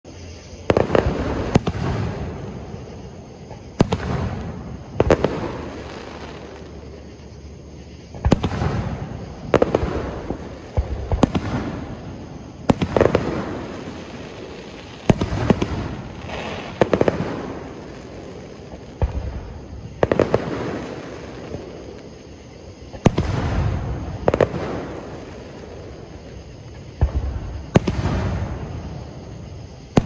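Aerial fireworks shells bursting one after another, a sharp bang every second or two, each trailing off in a fading rumble.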